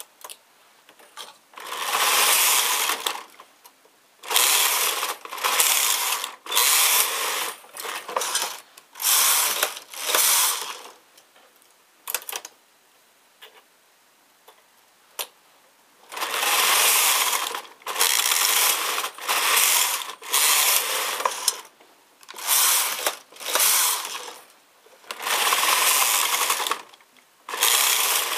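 Knitting machine carriage sliding back and forth across the needle bed in repeated passes, each about a second long. The passes come in two runs with a pause of several seconds in the middle, where only a few single clicks are heard.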